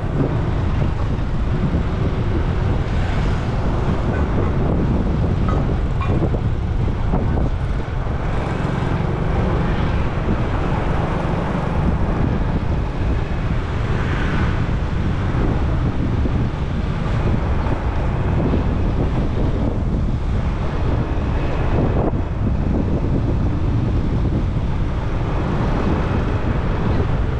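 Steady riding noise from a moving scooter: wind rushing over the microphone, with the scooter's engine and tyre noise underneath.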